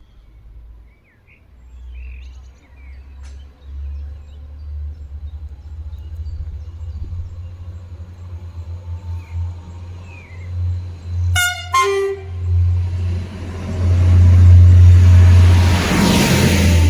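Stadler GTW diesel train sounding its typhoon horn in two short blasts, a higher tone then a lower one, about two-thirds of the way in. Then it pulls away, its diesel engines and running noise swelling steadily louder, over a low rumble.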